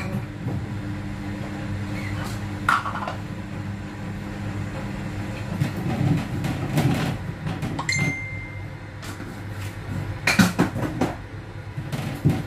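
Dishes and utensils being handled at a kitchen counter: scattered clinks and knocks, a cluster of them about ten seconds in, over a steady low machine hum. A short high beep sounds about eight seconds in.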